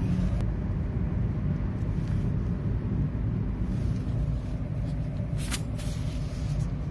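Steady engine and tyre rumble of a car driving along, heard from inside the cabin, with a couple of brief clicks near the end.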